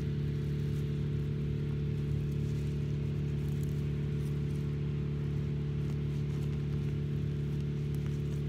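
A steady low mechanical hum, a motor or engine running without change, with faint rustling of soil being worked by hand.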